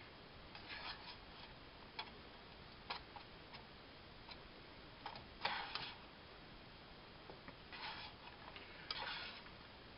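Plastic slotted spatula stirring rice in a nonstick frying pan: faint, irregular scrapes and light clicks against the pan every second or two, the loudest scrape about halfway through and two more near the end.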